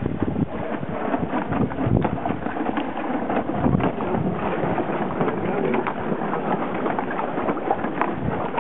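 Wind buffeting the microphone, mixed with an irregular fluttering patter of loose sailcloth flapping as the small sailboat's sails luff.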